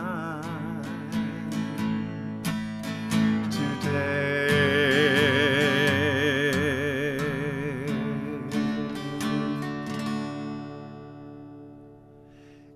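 Slow devotional song: acoustic guitar picked under a sung note with vibrato, held from about four seconds in to about ten, after which the music fades down near the end.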